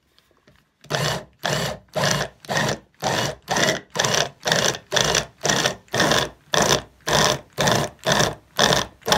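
Tescom THM321 hand blender on its chopper attachment, pulsed on and off about twice a second, starting about a second in. It is cutting cold butter and water into flour for a crumbly pie-crust dough.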